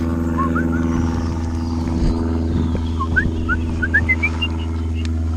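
An engine running steadily at one speed, a low even drone, with short rising high-pitched whines over it, one after another.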